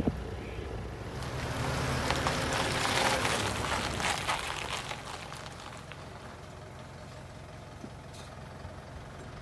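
Mitsubishi Triton dual-cab ute rolling slowly across loose gravel, its tyres crunching on the stones, loudest about three seconds in. It then stops and idles with a low steady hum.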